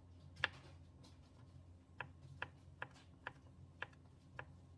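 Kitchen knife slicing button mushrooms on a cutting board: short sharp taps of the blade striking the board, one about half a second in, then roughly two a second from about two seconds on.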